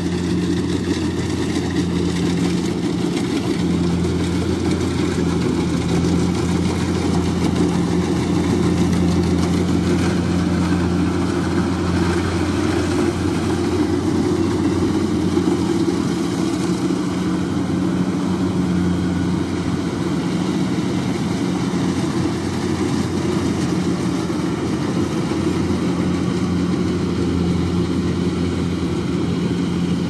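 Kubota DC-70 rice combine harvester's diesel engine and machinery running steadily at a constant level while harvesting.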